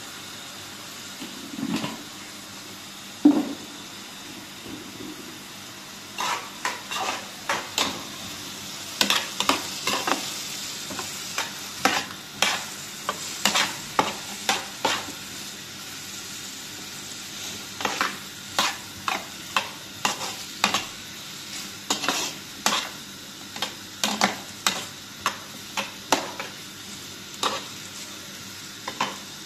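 Food sizzling in a pan with a steady hiss. From about six seconds in, a utensil scrapes and knocks against the pan about twice a second, as in stirring, with a short pause midway.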